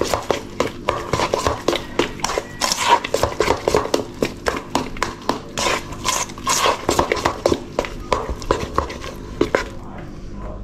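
A hand kneading and squeezing wet flour dough in a stainless steel mixing bowl: quick, irregular wet slaps and squelches with taps against the metal, several a second, stopping near the end.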